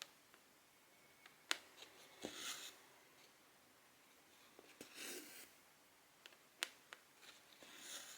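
Cotton embroidery thread pulled through 14-count cross-stitch fabric in three soft swishes, with a few sharp clicks of the needle against the fabric.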